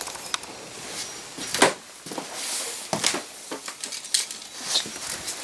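Handling noise: a few scattered knocks and clicks, the strongest about three seconds in, with a short rustle near the middle, as the camera and objects are moved about in a small room.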